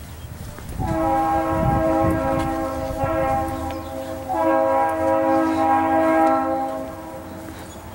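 Train horn blowing: a chord of several steady tones in two long blasts, starting about a second in, the second following straight on from the first and stopping about a second before the end.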